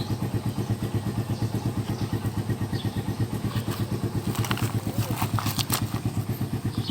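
A small engine idling steadily with an even, rapid putter of about ten pulses a second. A few light clicks come in around the middle.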